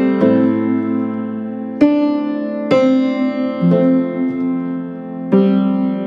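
Background music: a slow keyboard melody, with piano-like notes and chords struck roughly once a second and left to ring.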